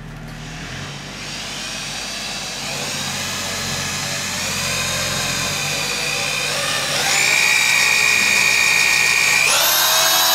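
Electric drill turning a paddle mixer through thick transom pour compound in a metal bucket. The motor whine climbs gradually in pitch as the drill speeds up, then steps up sharply twice, about seven and nine and a half seconds in.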